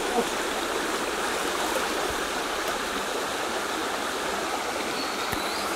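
Steady rushing of flowing stream water, an even, unbroken wash of noise.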